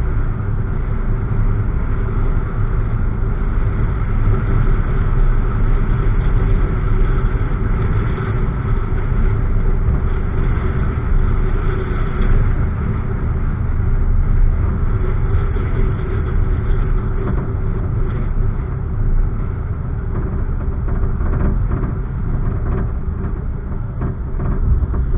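Steady low rumble of a car driving along a street, engine and tyre noise heard from inside the cabin.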